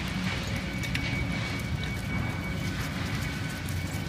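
Chalo Sulky FireAnt dog-drawn tricycle rolling along a sandy dirt trail: a steady rumble of tyres and frame with small clicks and rattles scattered through it, and a thin steady high tone running underneath.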